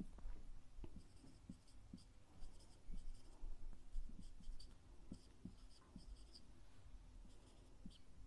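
Marker pen scratching and squeaking faintly across paper in many short strokes, with soft taps as the tip touches down.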